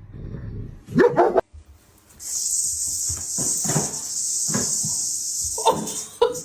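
A dog barks twice in quick succession, then makes shorter yelps and whines over a steady hiss, and calls once more near the end.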